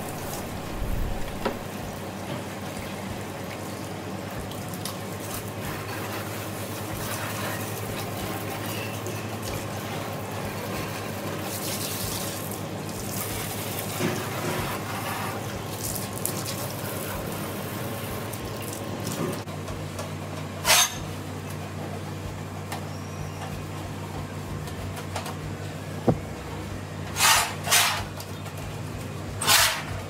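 Water spraying from a hose and splashing over a window air conditioner's coil, fan motor and base tray, with a steady low hum underneath. A few short, louder bursts of spray come in the second half, most of them near the end.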